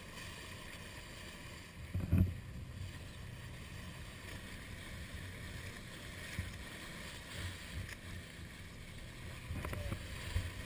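Small aluminum boat under way at sea: a steady rush of engine and water noise along the hull. Low thumps about two seconds in and again near the end, as the hull knocks through the chop.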